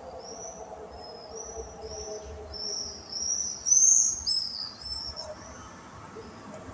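Small birds chirping in a quick series of short, high notes, loudest around the middle. A faint, drawn-out low tone sounds beneath them in the first couple of seconds.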